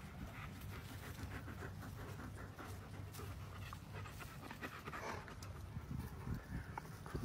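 German Shepherd dog panting, with a steady low rumble underneath.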